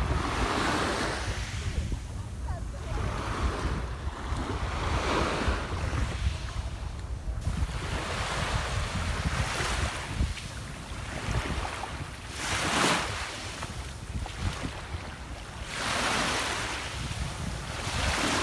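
Sea of Japan surf: waves breaking and washing in, swelling and falling back in repeated surges every few seconds, over a steady low rumble of wind on the microphone.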